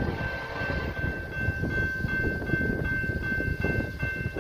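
Grade-crossing warning bell ringing steadily, a high repeating ring warning of an approaching train, over a low rumbling noise.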